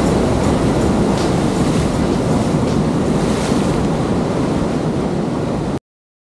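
Sea surf washing up a sandy beach: a steady rush of breaking waves and foam, with some wind on the microphone. It cuts off abruptly near the end.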